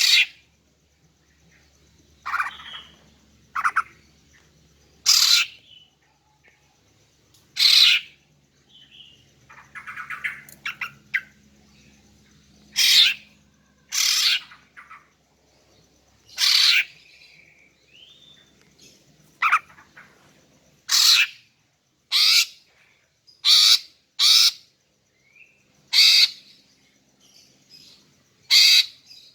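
Female greater green leafbird (cucak ijo) calling: short, sharp calls repeated every one to two seconds, with a softer run of chatter about ten seconds in.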